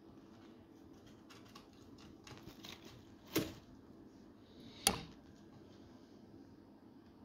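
Pet rats moving about their cage: faint scratching and rustling in the bedding and on cardboard and wood, with two sharp knocks about three and a half and five seconds in.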